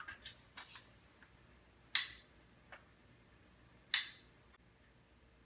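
Handheld caulking gun clicking as it is worked: two loud, sharp clicks about two seconds apart, with a few fainter clicks before them and a small one in between.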